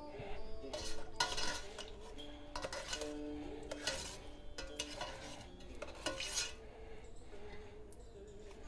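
Metal utensil clinking and scraping against a pot of frying oil as crisp fried taro is scooped out, in a string of short, uneven clatters.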